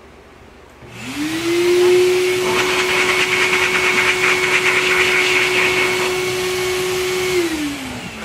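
Electric blow dryer switched on about a second in, its motor whining up to a steady pitch over a rush of air, drying a dog's tear-stained face fur. Near the end it is switched off and the whine falls away as the motor winds down.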